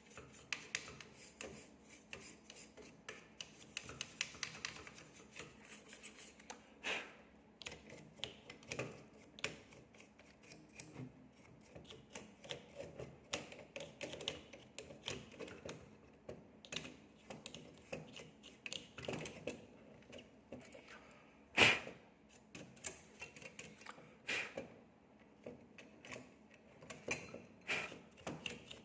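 Hands working on a partly disassembled graphics card: irregular small clicks, taps and rubbing of plastic and metal parts, with one louder knock about two-thirds of the way through.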